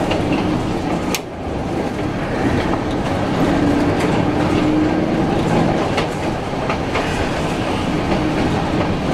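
PCC streetcar running along the track: a steady rumble of steel wheels on rail, broken by a few sharp clicks as the wheels cross rail joints, with a motor hum that comes up for a couple of seconds in the middle.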